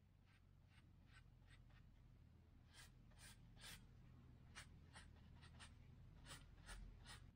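A flat paintbrush stroking oil onto a sanded wooden beam: a run of faint, short brushing strokes, about two a second, that grow stronger from about three seconds in.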